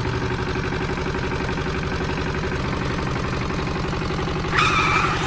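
An engine running steadily with an even, rapid pulse. A brief high steady tone comes in near the end.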